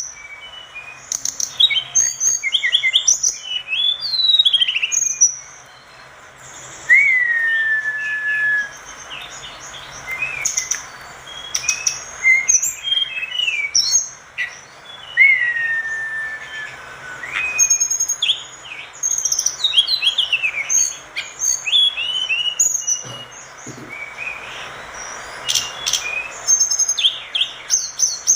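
Tledekan gunung singing a fast, varied song of high chirps, short trills and whistled notes. Twice a longer whistle slides down in pitch.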